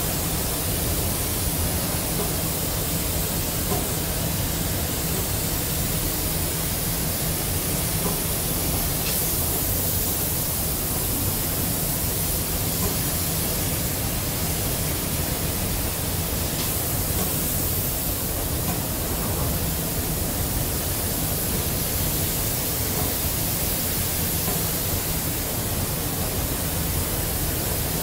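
Steady rushing hiss of a robotic spray-painting booth, with a low hum underneath, as the robot arm sprays paint over a tractor chassis.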